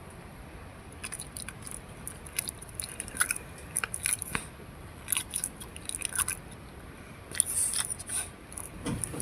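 A French bulldog making irregular wet clicking and smacking mouth sounds, a few to several a second with short gaps.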